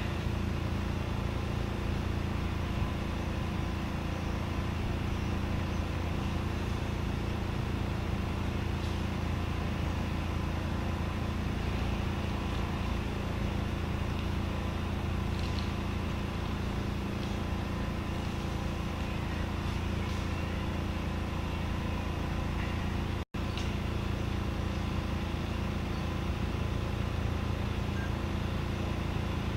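A steady engine-like mechanical drone, even in pitch, that cuts out for an instant near the end.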